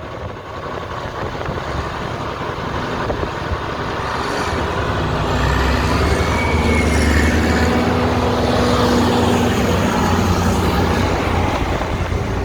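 Heavy haul truck's diesel engine running under load, growing louder over the first several seconds as it pulls, then holding a steady drone.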